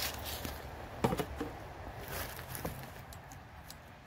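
Footsteps and rustling of someone walking through overgrown brush and scattered debris, with small irregular clicks and one sharp click about a second in.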